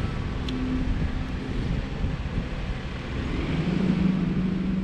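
A motor vehicle's engine running, a low rumble with a steady hum that grows louder near the end.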